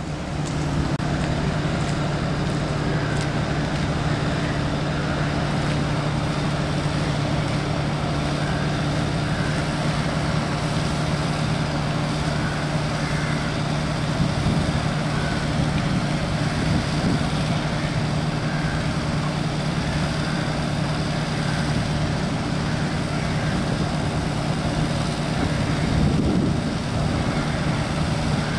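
An engine running steadily, a deep even hum that holds one pitch without revving.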